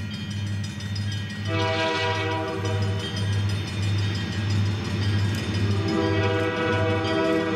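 Air horn of an approaching EMD diesel freight locomotive sounding for a road crossing: a chord blast of about a second and a half, then a second blast near the end that is still going. Under it runs a low, pulsing diesel throb.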